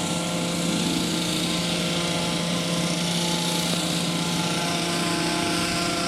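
Two Stihl two-stroke chainsaws cutting a hedge, their engines running with a steady drone.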